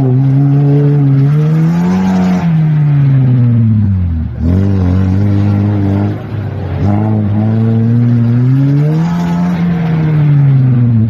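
Lada Niva's engine revving hard in long rising and falling swells as it spins its wheels through deep mud, dropping off briefly twice around the middle.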